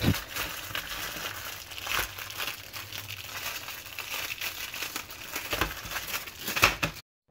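Plastic wrapping of a microwave popcorn bag crinkling as it is unwrapped by hand, with a few sharper crackles; it cuts off suddenly near the end.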